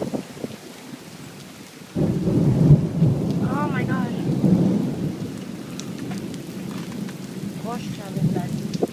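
Rain falling steadily during a thunderstorm, with a loud, low rumble of thunder that starts suddenly about two seconds in and slowly dies away.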